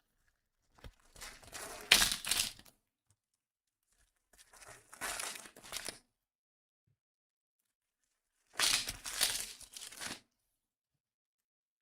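Card packaging being torn open and crinkled by hand, in three separate bursts of tearing and rustling each lasting a second or two.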